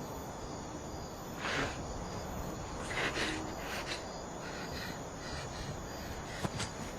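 Crickets chirping steadily in the background ambience, with a few brief soft noises about a second and a half and three seconds in.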